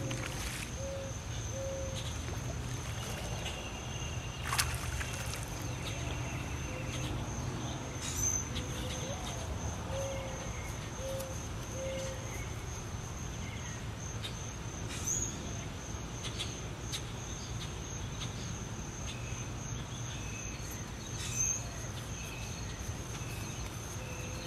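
Steady insect trilling on one high note, over a low steady hum, with short low calls repeating in little groups of three or four and a few soft knocks.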